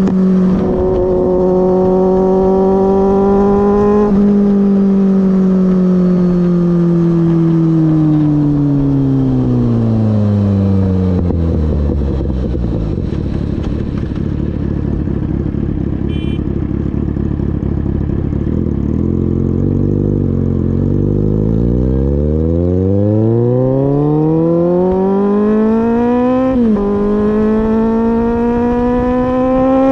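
Kawasaki Z800's inline-four engine under way. The revs hold steady at first, then fall off smoothly as the bike slows, and run low for several seconds. They then climb again under acceleration, with an upshift near the end that drops the pitch sharply before it rises again.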